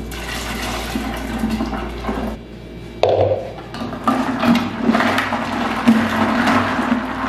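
Liquid poured in a stream from a blender jar into a large glass jar of lemon water and ice. About three seconds in, the drink is stirred with a plastic paddle, water and ice sloshing in the jar in repeated strokes.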